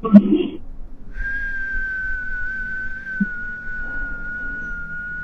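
A person whistling one long, steady high note that wavers slightly in pitch, starting about a second in, after a short loud sound at the very start.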